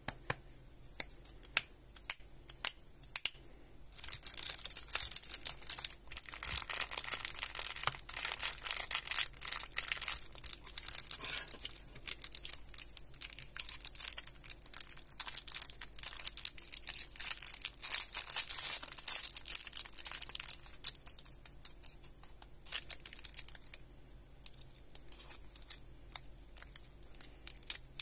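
Cellophane wrapper of a rainbow swirl lollipop crinkling and crackling as hands squeeze and work it. A few sharp clicks come first; the dense crinkling starts about four seconds in and thins to scattered crackles near the end.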